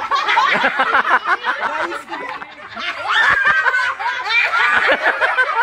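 A group of people, adults and children, laughing together at once, loud, with overlapping voices, dipping briefly near the middle before rising again.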